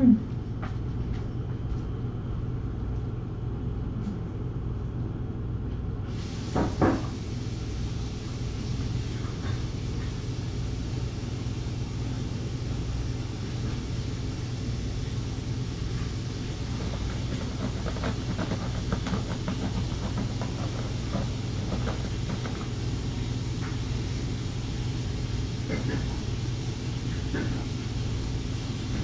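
Steady low hum of room noise, with faint scattered clicks and taps as kittens move about, and one short call about seven seconds in.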